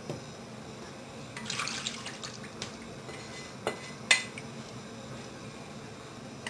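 Liquid poured from a frying pan into an earthenware casserole, with a wooden spatula scraping the pan and a few clinks, the sharpest about four seconds in.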